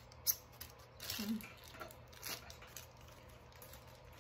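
A sharp plastic click from a phone holder clamp being handled, then soft rustling of the plastic wrap on the ring light's gooseneck arm.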